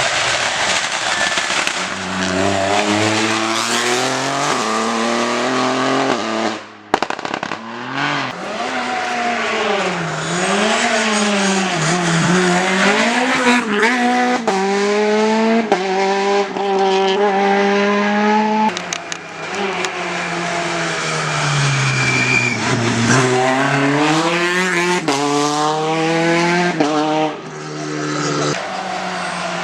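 Rally car engines revving hard, pitch climbing through each gear and dropping sharply on lifts and downshifts, over and over as the cars drive a stage.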